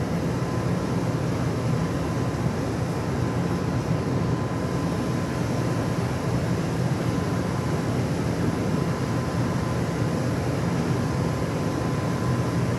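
Ship's machinery running with a steady low drone and a faint constant whine above it, unchanging throughout.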